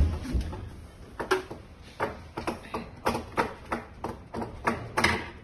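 Metal parts of a weighing filling machine being handled during disassembly: one heavy thump, then a run of sharp clicks and knocks, about two or three a second.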